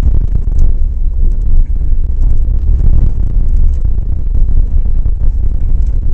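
Steady low rumble of a vehicle rig driving over a gravel dirt road, picked up by a camera mounted on the tow bar, with frequent small clicks and rattles.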